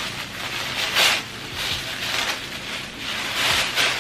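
Crinkly packaging wrap being handled and pulled open, rustling and crackling in a run of swells, loudest about a second in and again near the end.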